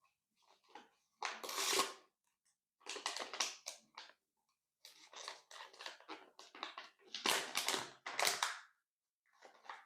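Transparent slime with real candy mixed in, being squeezed and worked by hand, making sticky clicking and crackling sounds in several bursts with short silent gaps between them.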